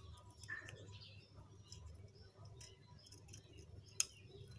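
Faint small clicks and taps of metal carburetor parts being handled and fitted together during reassembly, with one sharper click near the end.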